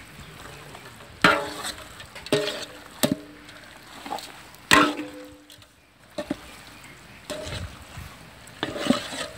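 A metal ladle stirring goat testicles in a large metal cooking pot. It knocks and scrapes against the pot's side every second or two, and several knocks leave a brief ring from the pot.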